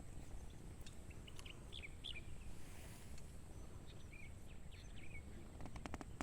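Outdoor ambience with a steady low rumble and small birds chirping faintly in short runs, with a few sharp clicks near the end.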